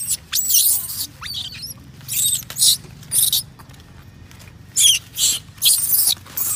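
Infant macaque screaming: about ten shrill, high-pitched squeals in quick runs, some sliding up and down in pitch, with a short break near the middle.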